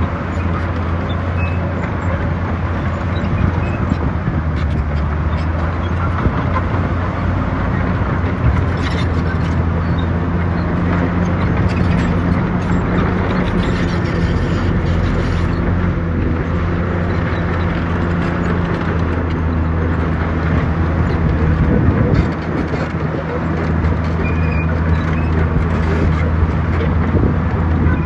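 Diesel engine of heavy earthmoving machinery running steadily at a constant pitch, with a few scattered knocks.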